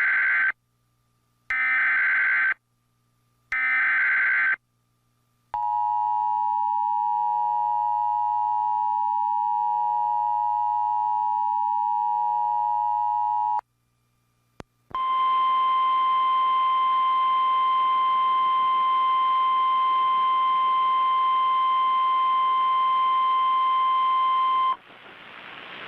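Emergency Alert System signal: three short bursts of warbling SAME digital data, then about eight seconds of the EAS two-tone attention signal, and after a short gap about ten seconds of the NOAA Weather Radio 1050 Hz warning alarm tone, which heralds a weather warning broadcast.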